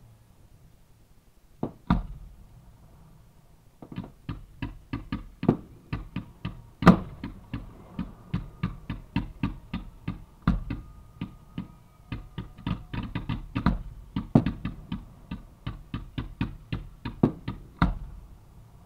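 Fireworks launching from the ground at close range. Two bangs come about two seconds in, then from about four seconds a fast string of sharp reports, roughly three or four a second, with a few louder bangs among them.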